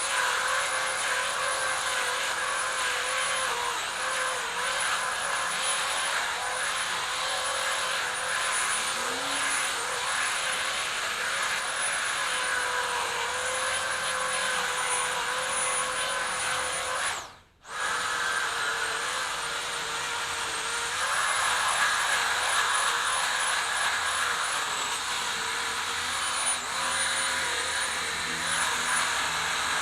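Chainsaw running at high revs, its pitch dipping briefly again and again as it bites into wood. The sound drops out for an instant about two-thirds of the way through.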